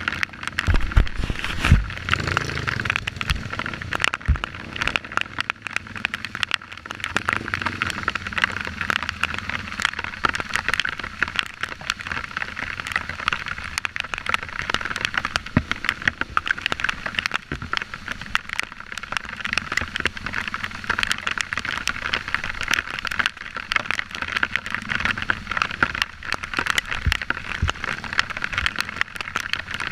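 Dirt bike being ridden over a rough, muddy trail, heard from on board: a constant crackling rattle of the ride over the engine, with a few heavy jolts in the first few seconds.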